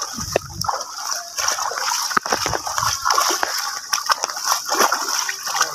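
Splashing and sloshing of shallow floodwater as a cast net is hauled and water pours off it, over a steady hiss of flowing water.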